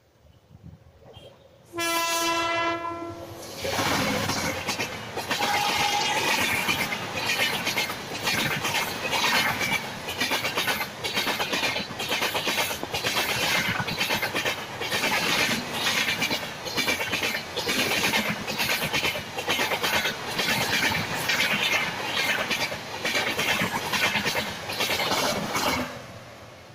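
An Indian Railways WAP7 electric locomotive sounds its horn once, a single held note for about a second and a half. Then the push-pull Rajdhani Express passes close by, its wheels clacking in a steady rhythm under the coaches, before fading out near the end.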